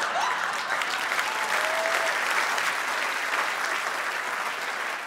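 Theatre audience applauding steadily, easing off slightly near the end.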